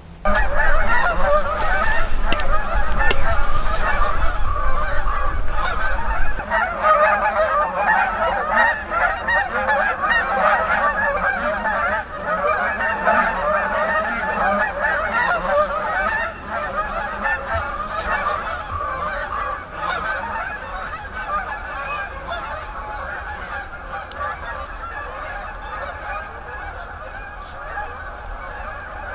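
A large flock of geese honking, many overlapping calls that start all at once and slowly fade away.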